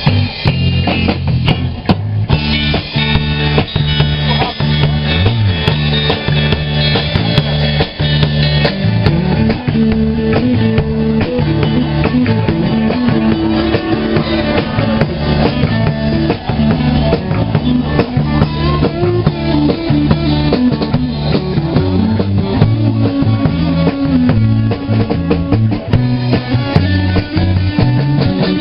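Live rock band playing an instrumental passage: drum kit, electric guitar and bass.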